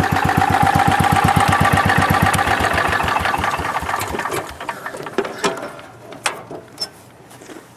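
The 10 hp cast-iron Kohler single-cylinder engine of a Wheel Horse C101 lawn tractor running with an even, fast beat, then dying away about four to five seconds in. A few scattered clicks and knocks follow.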